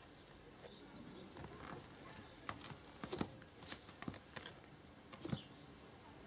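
Kittens playing: a faint patter of small paws with scattered light taps and knocks, a few louder ones in the middle.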